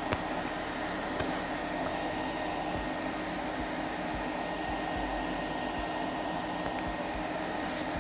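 Steady whir and hiss of air from a fan or blower at a repair bench, with a sharp click just after the start and a fainter one about a second in.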